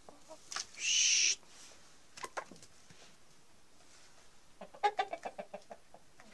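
Chickens: a loud, harsh half-second squawk about a second in, then a quick run of short clucks near the end.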